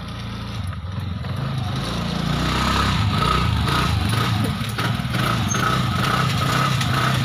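Scooter engine running as it is ridden, getting louder over the first few seconds and then holding steady.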